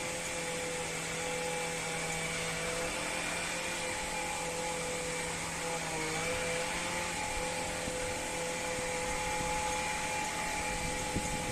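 A machine running steadily: an even hum and whine holding several steady tones over a hiss, with a brief dip in pitch about six seconds in.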